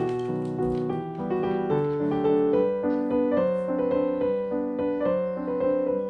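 Background piano music: a calm run of notes following one another at an even pace.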